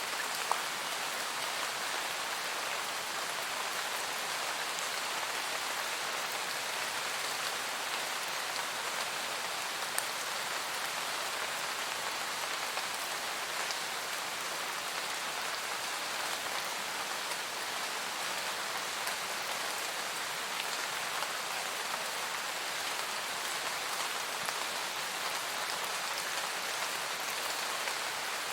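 Steady rain falling on forest foliage, an even hiss of many drops with a few sharper single drop ticks standing out now and then.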